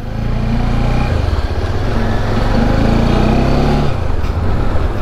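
Motorcycle engine pulling away and accelerating, its pitch climbing. It eases off about a second in, picks up again, and drops back near the end.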